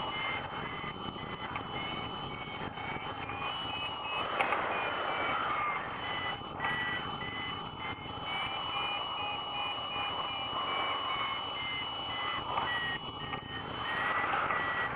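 Hang glider variometer beeping rapidly, its pitch rising and falling as the climb rate changes, a sign the glider is climbing in lift. A steady high tone sits behind it, over wind rushing past the microphone.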